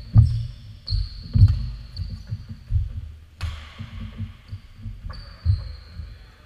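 Badminton play on an indoor court: irregular heavy low thumps of a player's footsteps on the court floor, with a few sharp clicks of a racket hitting the shuttlecock.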